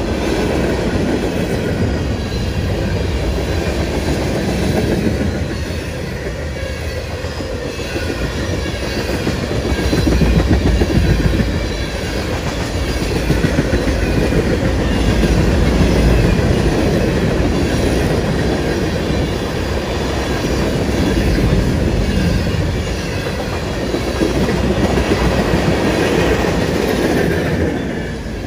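Manifest freight train rolling past, its steel wheels clacking over the rail joints in a continuous loud rumble that swells and eases a little in level.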